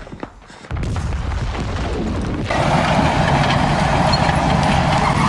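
Low engine rumble of a light tank, starting abruptly just under a second in and joined about halfway by a steady rattling clatter.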